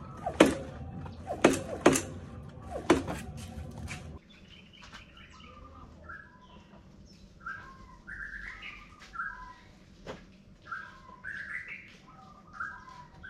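A Kawasaki KX250F's rear suspension is bounced by pushing down on the seat, giving about four sharp knocks with brief creaking tones over the first four seconds. This is the rear shock while its bladder was damaged. After a sudden cut, birds chirp repeatedly with short rising calls over faint background.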